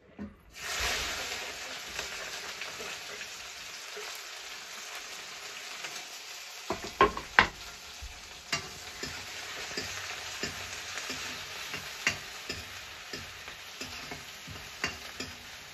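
Onion dropped into hot oil tempered with ajwain and curry leaves, bursting into a sizzle about half a second in and frying steadily. From about seven seconds in, a cooking spoon knocks and scrapes against the pan as it is stirred, the loudest knocks just after that.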